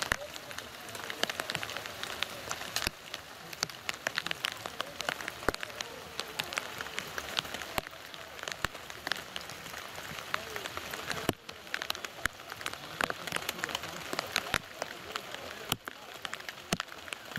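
Rain falling, with a steady hiss dotted by many sharp, close drop hits.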